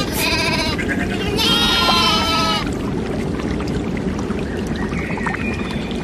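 Bleating livestock: two drawn-out bleats in the first three seconds, the second longer, over a steady low rushing noise.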